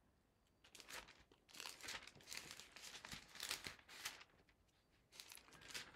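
Faint rustling and crinkling of thin Bible pages being turned by hand, in scattered soft strokes, with a short pause before a last brief rustle near the end.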